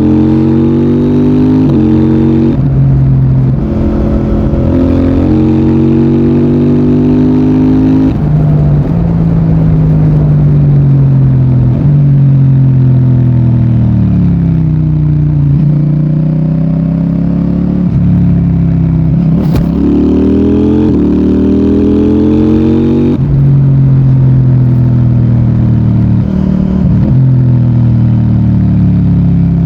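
CFMOTO 800NK Advanced's parallel-twin engine and exhaust under way, its pitch repeatedly climbing as it accelerates, dropping sharply at gear changes and sliding down as it slows. One sharp crack about two-thirds through.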